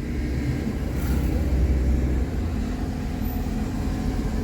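Steady road-traffic noise: a low vehicle rumble with a faint steady engine hum.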